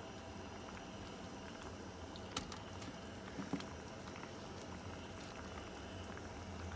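Pot of soup simmering on a gas stove: a steady low bubbling hiss, with a few faint clicks about two and a half and three and a half seconds in.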